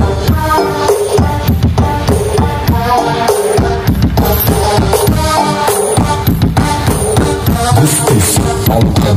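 Loud music with drums, played through a large stacked speaker system driven by home-built class D amplifiers (a 2-channel full-bridge UcD 120 V and a 4-channel Tiger 2000) on switch-mode power supplies, during a sound test.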